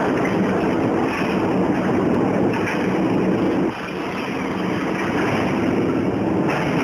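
Automated bitumen membrane roll palletizing line running: a steady mix of conveyor and drive-motor noise with a low hum. The noise drops slightly a little before four seconds in.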